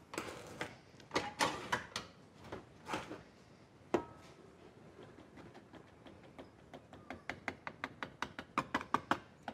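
Kitchen handling sounds around a tilt-head stand mixer. A sharp click comes about four seconds in as the mixer head is raised. Then, in the second half, a quickening run of light taps as an upturned plastic tub of self-raising flour is knocked over the steel bowl to shake the flour out.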